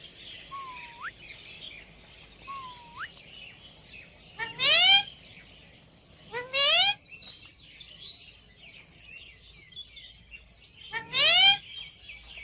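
Wild rose-ringed parakeets giving three loud, harsh, rising screeches, spaced several seconds apart, over steady chirping from smaller birds. Two short rising whistles come in the first few seconds.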